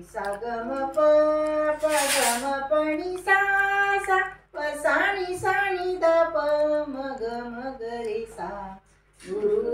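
A woman and a young girl singing a song together in long held notes, with short breaks between lines about halfway through and near the end.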